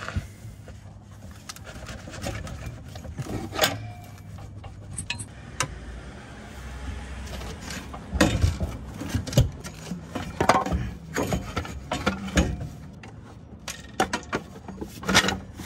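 Scattered metallic clinks and knocks from hands and tools working the BW35 automatic transmission loose on a floor jack, with a run of sharper knocks in the second half.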